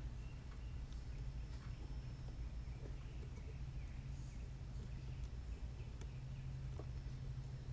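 Steady low hum with a few faint clicks and taps as small parts of a micro whoop drone are pressed back into its frame by hand.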